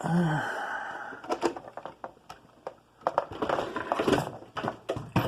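Handling noise: rustling and a run of irregular clicks, knocks and rattles of hard objects being moved about.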